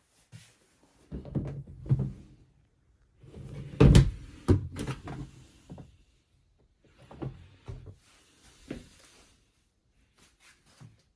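A series of knocks and clunks of things being handled, in several short clusters, the loudest about four seconds in and a few light taps near the end.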